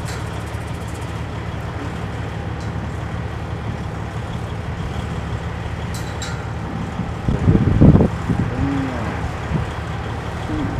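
Thunder rumbling over a steady low drone, swelling loudest about seven and a half seconds in.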